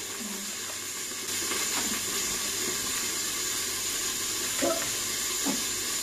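Buckwheat groats poured from a plastic bag into a metal pot, a soft grainy rustle and patter, over a steady sizzle of chicken frying in a lidded pan. The noise steps up slightly about a second in, with a few faint ticks of grains.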